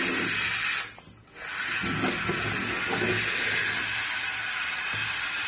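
RC excavator hydraulic pump running with a steady hissing whir as the boom and bucket are worked through the valves. About a second in it dies away briefly, then spins back up.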